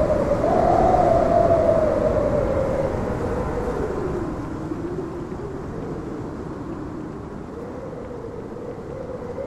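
A long steamship whistle over a low rumble. Its pitch sags around the middle and settles back up, and it grows quieter after the first couple of seconds.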